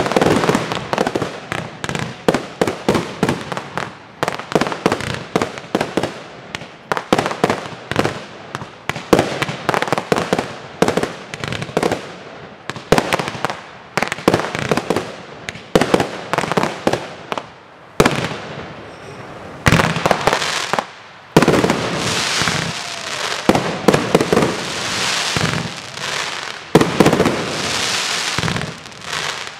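Aerial fireworks display: a rapid string of shell bursts and bangs, easing briefly about two-thirds of the way in, then a dense crackling of glittering stars with further bangs near the end.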